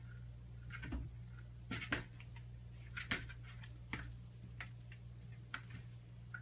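Light metallic jingling and clinking in several short bursts, two of them with a brief high ringing note. A steady low hum runs underneath.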